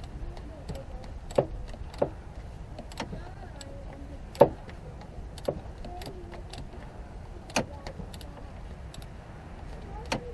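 Scattered sharp metallic clicks and clinks, about seven in ten seconds with the loudest about four seconds in, as a wrench works the nut on a starter motor's cable terminal.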